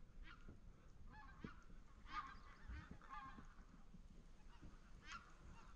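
A flock of geese flying over, calling faintly with repeated honks, most densely a second or two in.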